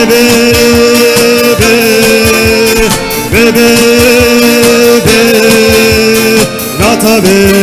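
Folk song played live: classical acoustic guitars strumming a steady rhythm under a melody of long held notes, each sliding up into pitch.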